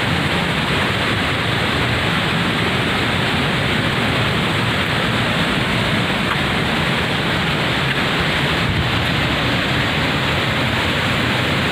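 Waterfall crashing down in a heavy flow, a steady dense rush with no let-up.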